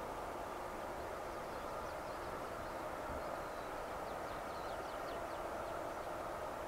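Twin Rolls-Royce AE 3007 turbofans of an Embraer ERJ-145 running with a steady whine at the start of its takeoff. A few short bird chirps come through near the middle.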